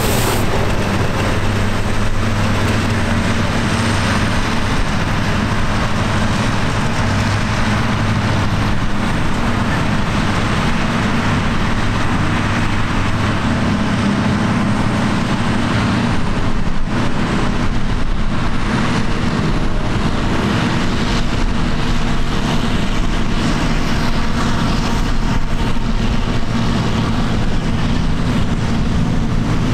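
Diesel farm machinery running steadily at work: first a tractor with a Kverneland round baler, then, after a change partway through, a Claas Jaguar 890 self-propelled forage harvester harvesting grass beside a Ford tractor and silage trailer. A thin high whine sits over the engines in the first half.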